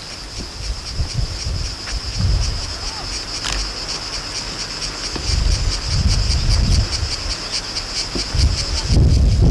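A steady, high-pitched chorus of insects in the summer meadow, pulsing rapidly. Wind gusts rumble on the microphone and grow stronger near the end.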